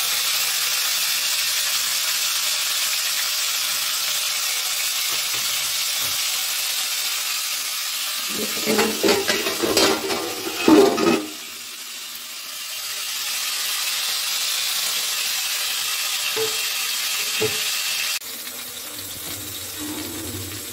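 Chicken pieces frying in shallow oil, with a steady sizzle. About eight seconds in comes a few seconds of loud clinks and clatter from metal tongs and a plate. The sizzle then resumes and drops away suddenly near the end.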